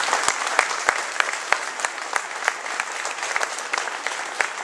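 A large audience applauding, with one person's claps close and distinct, about three a second, over the crowd's applause, which slowly eases off.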